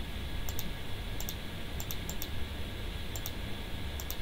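Light, sharp computer mouse clicks, several in quick pairs, scattered over a few seconds above a steady low background hum.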